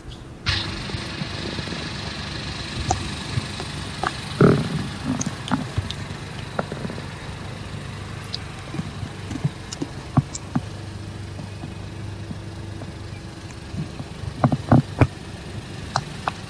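A VW Taigo's 1.0 TSI three-cylinder petrol engine idling steadily; its hum comes in suddenly about half a second in. Scattered light clicks and a louder knock about four seconds in come from handling in the cabin.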